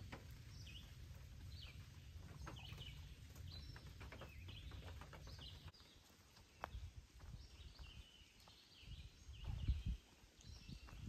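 Songbirds chirping and calling over and over in a misty forest, at first over a steady low rumble that stops about halfway through. A few soft low thumps come in the second half, the loudest near the end.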